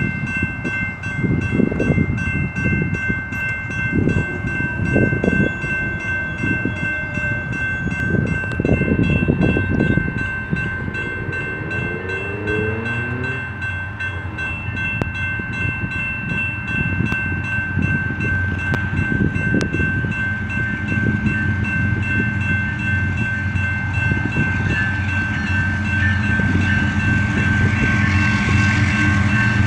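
Grade-crossing warning bell ringing steadily, with low gusts of wind buffeting the microphone through the first half. A BNSF coal train's lead diesel locomotives approach, their low engine drone building and growing louder toward the end.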